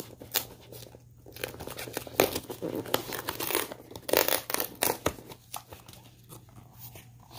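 A sealed cardboard box being torn open along its perforated tear strip: a run of tearing and crinkling cardboard with scattered clicks, heaviest in the middle, then the box handled as it opens.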